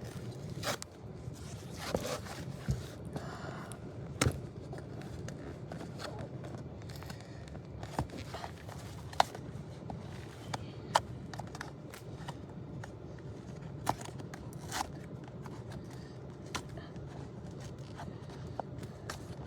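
Handling noise: scattered clicks, taps and scraping, as of objects being moved and handled, over a steady low hum.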